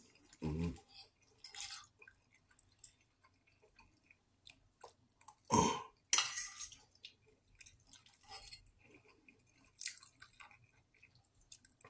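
A person chewing and eating macaroni and cheese, with small clicks of a fork against a metal bowl. There are short louder noises about half a second in and again about five and a half seconds in.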